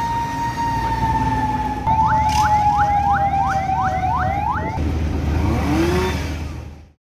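Fire truck sirens: one holds a steady wailing tone, and about two seconds in a second siren joins with rapid repeating upward sweeps, about three a second. The sirens stop after about five seconds, leaving a low rumble that cuts off abruptly near the end.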